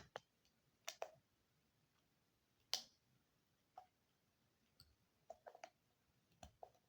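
Scattered sharp plastic clicks and taps from a sound machine's casing being handled and twisted apart, about a dozen at uneven intervals, the loudest about three seconds in and a quick cluster of several near the end.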